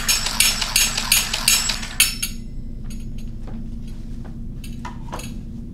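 Wind-up cymbal monkey toy clashing its small metal cymbals together at about four or five clashes a second, stopping about two seconds in, followed by a few faint clicks.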